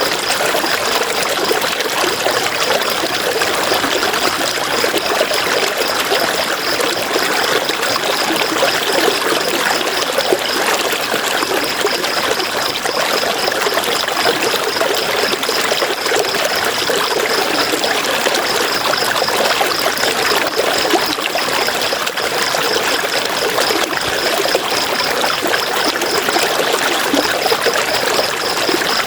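River water flowing and trickling steadily. Over it runs a high, fast-pulsing trill that breaks off briefly a few times.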